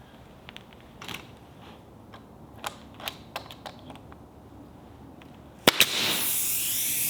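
Light clicks and taps of thin wood pieces being handled, then two sharp shots in quick succession from a pneumatic brad nailer, followed by a steady hiss of compressed air.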